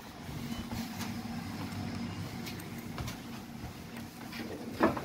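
Steady hum of a stationary tram's onboard equipment heard inside the car, with a few faint knocks and one sharper knock near the end.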